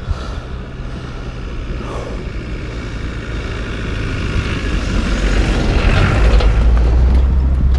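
Engine of a Land Rover Defender 4x4 approaching up a dirt track, growing steadily louder and loudest as it passes close by about six seconds in.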